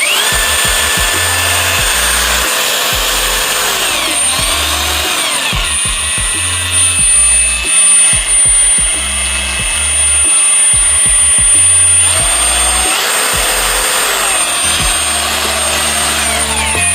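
Cordless power tool motor spinning up and running at speed with a high whine. Its pitch drops and rises again twice before it stops near the end, over electronic music with a heavy bass beat.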